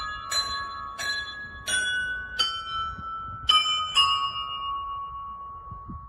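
A set of church bells in a belfry, rung by ropes pulled on their clappers, strikes a quick peal of high and middle tones, about one stroke every two-thirds of a second. The last strokes fall about three and a half and four seconds in, and the bells then ring on and fade.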